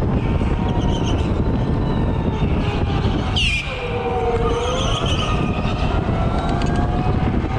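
Electric go-kart at speed: the motor's thin whine slides up and down in pitch with the throttle, over a heavy rumble of wind buffeting the microphone. Short high squeals come a few times as the tyres scrub through the corners, the sharpest about halfway through.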